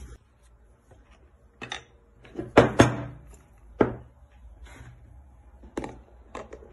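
A series of knocks and clatters, about six, as a glass food container is handled and a plastic lid is fitted onto it. The loudest are two quick knocks about two and a half seconds in.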